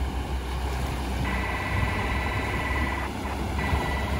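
A Toyota Land Cruiser 80 wading through a fast river ford: its engine running under load with the river water surging and splashing around the truck. A steady high-pitched tone comes in about a second in and runs for about two seconds, returning briefly near the end.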